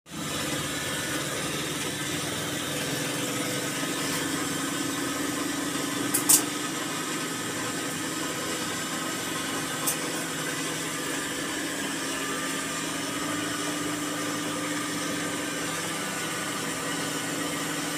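Singer sewing machine running steadily as it stitches cloth, a constant motor hum, with two sharp clicks about six and ten seconds in.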